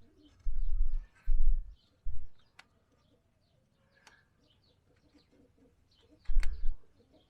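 Birds chirping faintly, with several short low rumbles that are the loudest sound and a couple of sharp clicks.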